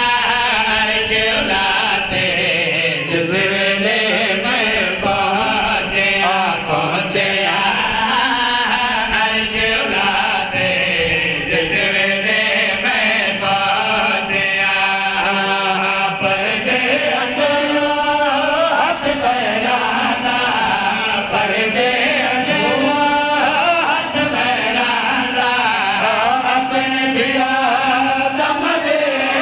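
Several men's voices chanting a devotional verse together through microphones, loud and continuous, with the voices overlapping in a sung melody.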